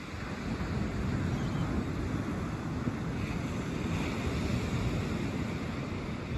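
Small ocean waves breaking and washing up a sandy beach: a steady rush of surf that swells about half a second in and eases near the end.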